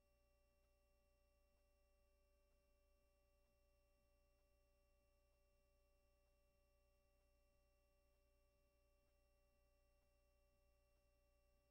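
Near silence: only a faint, steady electronic hum made of several constant tones.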